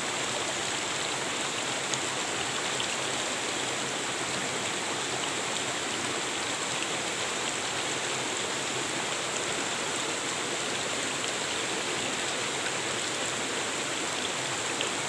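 Shallow rocky stream running over and around boulders: a steady, even rush of flowing water.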